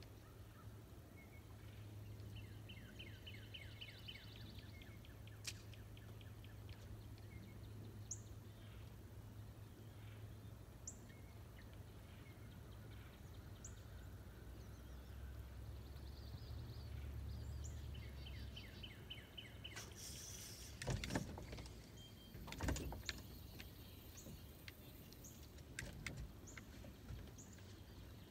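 Quiet lakeside ambience: birds chirping, with a short high call every few seconds and two trilled runs, over a low steady hum. In the last third come several sharp knocks and clicks of gear being handled on the boat.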